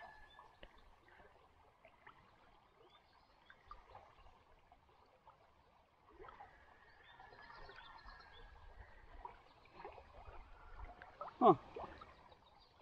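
Small rocky stream running faintly with rapids. A short, loud, falling-pitched voice sound comes near the end.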